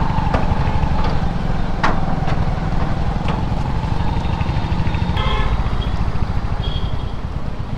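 Motorcycle engine running steadily in traffic, a dense low rumble with rapid pulsing. A brief higher tone, like another vehicle's horn, sounds about five seconds in.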